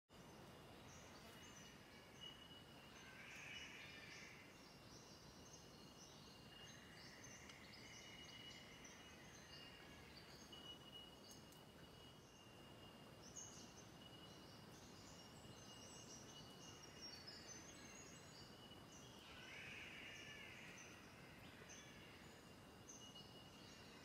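Faint rainforest ambience of birds and insects: a thin, steady high-pitched tone under many short, high chirps, with a few longer, lower calls now and then.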